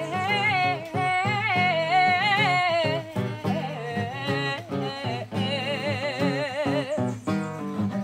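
A woman singing two long held notes with a wide vibrato, accompanied by a plucked acoustic guitar.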